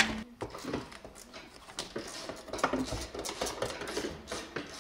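Scattered plastic clicks, creaks and knocks at irregular intervals as a car's dashboard is pulled and worked loose from its mountings.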